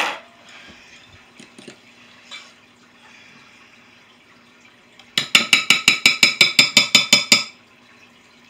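Metal spoon stirring mashed potatoes in a glass mixing bowl, with soft scraping, then a fast run of ringing clinks against the glass, about eight a second for two seconds, starting about five seconds in.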